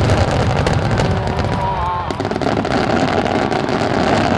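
A wide starmine fireworks display firing many shells at once: a dense, continuous crackle of bursts over a low rumble of booms.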